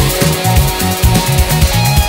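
Loud background music with a fast, heavy drum beat and bass.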